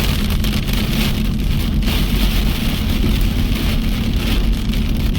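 Hail and heavy rain pelting a car: a dense, steady hiss of countless small impacts, over a steady low hum from the car's engine.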